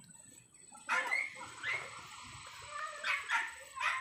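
An animal's short, sharp calls, a few at a time: one group about a second in, another about three seconds in.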